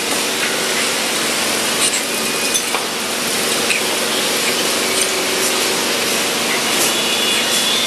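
Steady, fairly loud hiss of background noise, with a faint low hum and a few small clicks.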